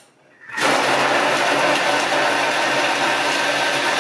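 Thermomix blade chopping a bowl of vegetables, cheese and eggs on speed 6 for a three-second chop. A loud, steady motor-and-blade noise starts about half a second in.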